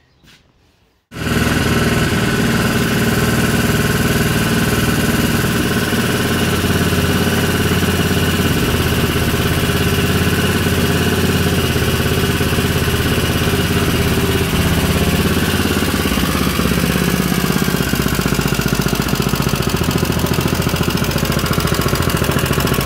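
Modified Honda GX200 single-cylinder engine on a newly fitted Tillotson TCT carburetor, running steadily after tuning. It cuts in suddenly about a second in.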